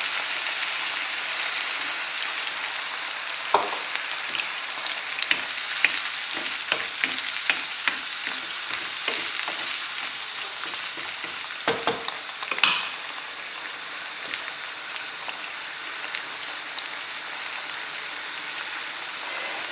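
Wild boar pieces sizzling in a frying pan as red wine is poured in to deglaze, the sizzle slowly easing. From about three seconds in, a wooden spoon stirs the meat and knocks against the pan for about ten seconds.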